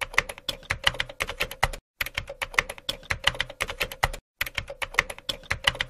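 Computer keyboard typing: rapid keystrokes clicking in three runs, broken by two short pauses.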